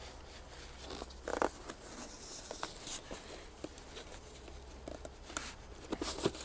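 Snorkeling gear being pushed and packed into its carry bag by hand: scattered rustling, scraping and small clicks, with a few short louder bursts of handling noise.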